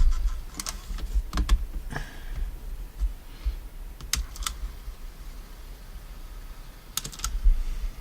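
Sharp plastic clicks and taps from handling the opened Panasonic RQ-SX41 portable cassette player's mechanism as it is tried out after the clutch repair, several coming in quick pairs.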